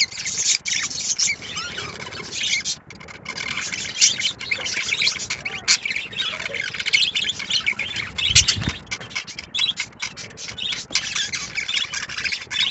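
Budgerigars chattering, with many high chirps overlapping in a dense, continuous warble. A brief low thump comes about eight seconds in.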